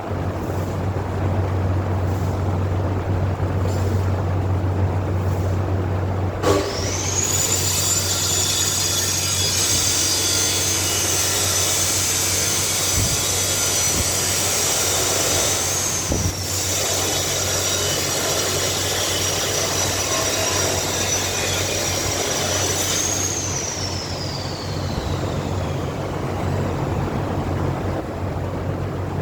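Electric angle grinder switched on after a steady low hum, running with a high whine over a harsh grinding noise that breaks briefly midway. It is then switched off and spins down, its whine falling away over a few seconds.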